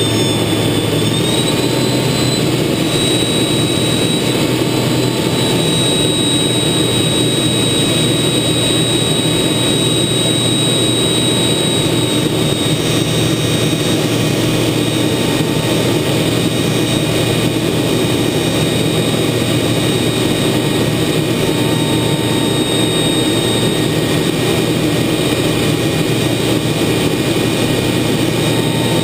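TA-4J Skyhawk's Pratt & Whitney J52 turbojet heard from inside the cockpit in flight: a steady rush of engine and airflow noise with a high turbine whine held at an even pitch.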